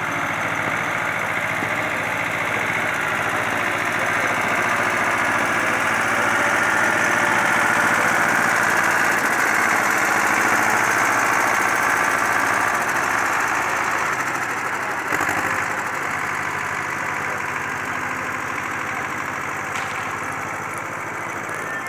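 A small farm tractor's engine running steadily as it pulls decorated wagons past at close range. It grows louder to about halfway through, then slowly fades, with one brief knock about two-thirds of the way in.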